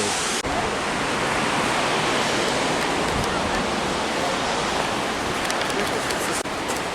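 Waterfall rushing steadily, a continuous even hiss of falling water, with two brief dips about half a second in and near the end.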